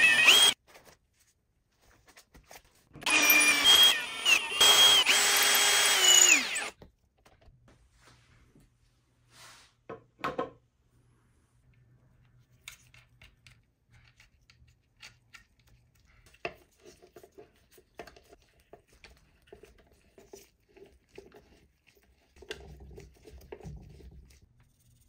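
Cordless drill boring mounting holes through an epoxy-resin skateboard deck: a short run that stops about half a second in, then a second run of about four seconds whose pitch drops as the motor stops. After that come faint clicks and small knocks of skateboard truck hardware being fitted by hand.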